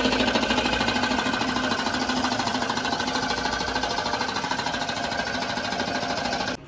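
A small machine running with a fast, even mechanical rattle and a steady hum, cutting off abruptly near the end.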